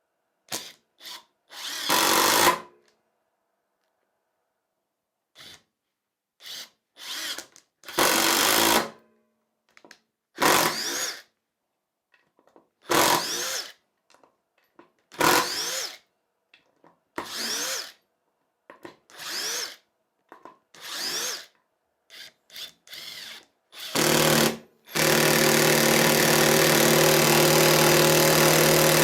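Parkside Performance PDSSAP 20 Li B2 brushless cordless impact driver run in a long series of short bursts, each under a second, some whirring up in pitch, and then held running steadily from about 25 seconds in.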